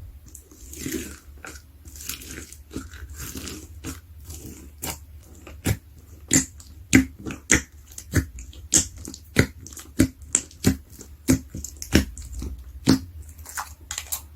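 Slime being squeezed and pressed: soft squishing and rustling at first, then from about halfway a steady run of sharp crisp pops, about three every two seconds.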